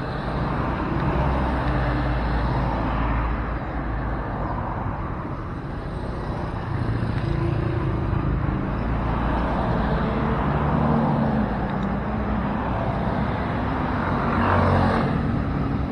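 Motor vehicle traffic: a steady low engine rumble with road noise that swells and fades a few times.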